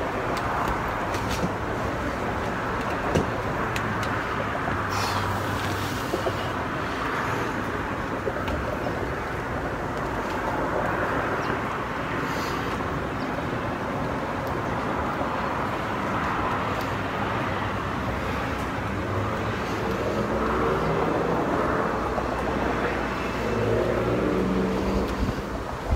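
Steady road-traffic noise, an even rushing hum with a few faint clicks.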